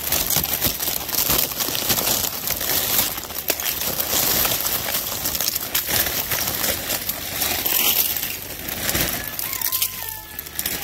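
Ice-glazed plastic tarp crinkling and crackling steadily, a dense run of sharp crackles.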